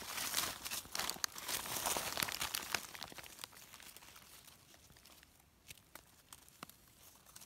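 Dry leaf litter crackling and rustling for about the first three seconds, then fainter, with only a few scattered small clicks and scrapes.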